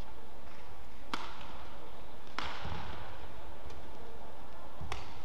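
Badminton rackets striking a shuttlecock in a rally: three sharp strikes over about four seconds, each with a short echo in the hall.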